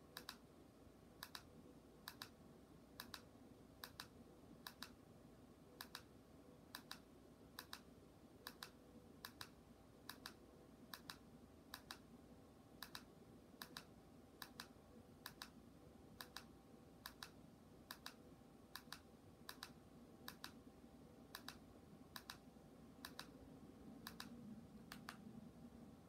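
Remote control buttons being pressed one after another to scroll an IPTV box's menu list. Each press is a small double click, about one press a second.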